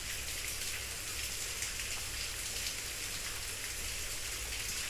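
Steady rain-like hiss with a low hum beneath it, even throughout.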